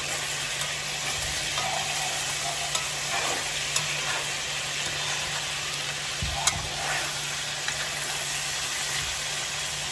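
Meatballs sizzling in a frying pan, a steady hiss with a few sharp clicks of a utensil against the pan, the loudest about six and a half seconds in.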